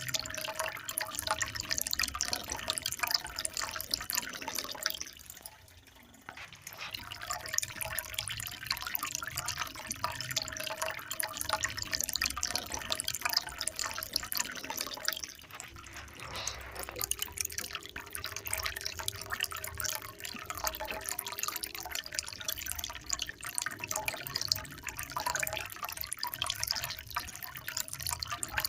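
Water trickling and splashing in a steady stream of small drips and splashes, briefly falling quieter about five seconds in.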